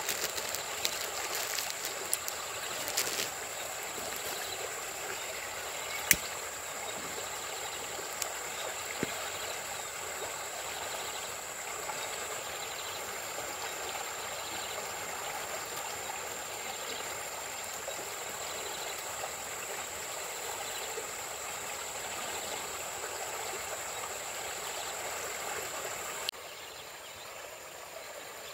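Muddy stream flowing past reeds: a steady rush and trickle of water, dropping in level a couple of seconds before the end.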